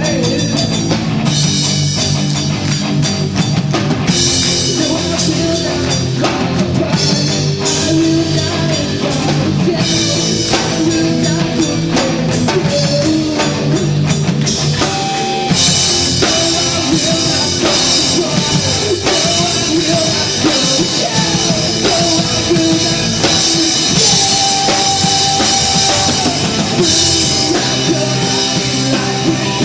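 Rock band playing a song: drum kit and electric guitar with a voice singing. The cymbals become brighter and fuller about halfway through.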